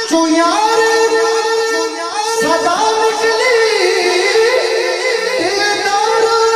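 A male naat reciter sings a Punjabi devotional naat through a microphone and PA system. His voice glides and ornaments between notes over a steady held note underneath.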